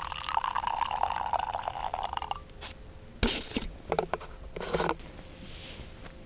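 Water pouring for about two seconds, then three short knocks.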